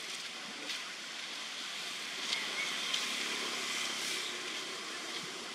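Steady outdoor forest ambience: an even hiss with a faint steady high drone, broken by a few faint clicks.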